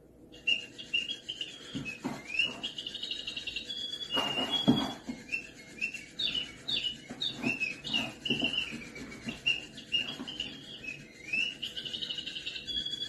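A bird-shaped cat toy giving rapid electronic chirps and tweets, over and over, with a few soft knocks and rustles as the cat paws it.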